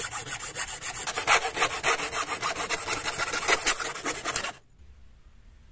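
Hacksaw cutting through a piece of dry coconut shell with quick, even back-and-forth strokes. The sawing stops abruptly about four and a half seconds in.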